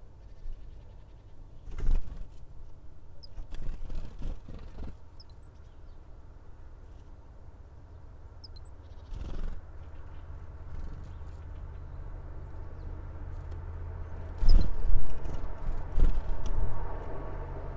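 Outdoor wind rumbling on the microphone, surging in several loud gusts, with a few faint, very short high chirps from tits.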